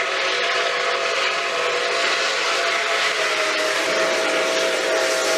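Steam locomotive whistle held in one long steady chord, over a loud hiss of steam.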